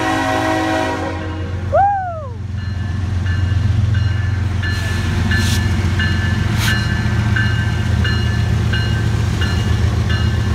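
CSX ES44AH (GE Evolution) diesel locomotive horn chord sounding, cut off about a second and a half in, followed by a brief yelp. The locomotive's diesel engine then rumbles past close by while a grade-crossing bell dings steadily, about one and a half strikes a second.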